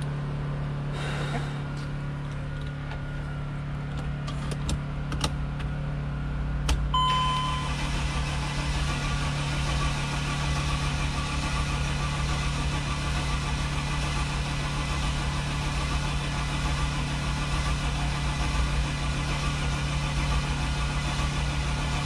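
Mercedes Sprinter diesel engine being cranked by the starter without catching: a slow, pumping crank of a no-start engine. A short dashboard beep sounds about seven seconds in, and a steady low hum runs underneath throughout.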